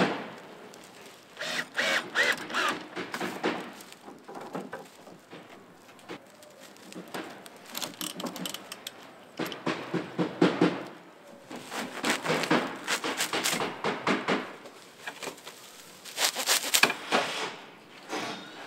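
Dry thatching reed rustling and clicking in short bursts as the stalks are handled and stitched down with wire.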